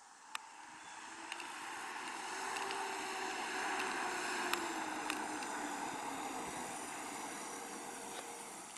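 1999 Bentley Arnage with its 4.4-litre BMW V8 driving past on asphalt: engine hum and tyre noise swell as it approaches, peak about four seconds in, then slowly fade, with a few faint ticks.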